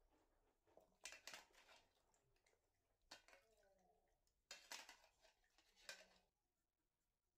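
Pieces of cut bottle gourd being handled and set into an aluminium pot: quiet clattering knocks against the pot in three short bursts, about a second in, just after three seconds, and again from about four and a half to six seconds.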